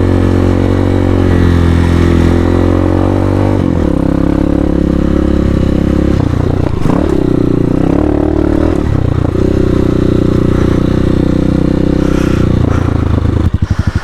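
Hawk 250 dual-sport motorcycle's single-cylinder engine running under load while riding off-road, its pitch shifting with throttle changes. Near the end the revs drop low enough that the separate firing pulses can be heard.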